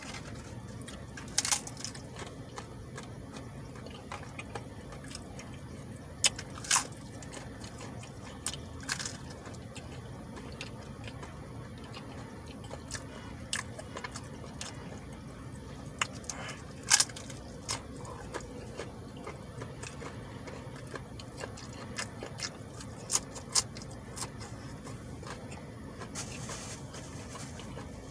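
A person eating tacos quickly: chewing and mouth noises with scattered sharp clicks, and a brief rustle near the end, over a steady low hum.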